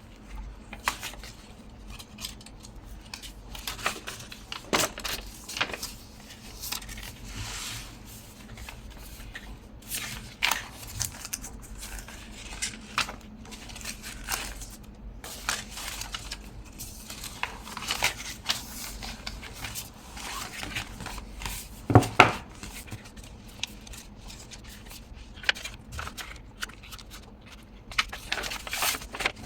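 Paper and cardstock being handled on a craft table: scattered rustling, light taps and clicks, with one louder knock about two-thirds of the way through.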